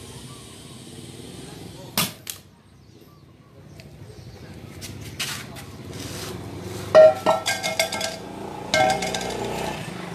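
Metal tools knocking and clanking as they are handled and set down, with two sharp knocks about two seconds in and a louder ringing clank about seven seconds in, over a steady low hum.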